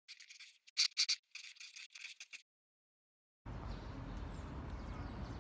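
A quick run of scratchy, squeaky strokes, like a marker scribbling on paper, for about two and a half seconds. A second of dead silence follows. Then comes steady outdoor background noise with a low rumble and faint bird chirps.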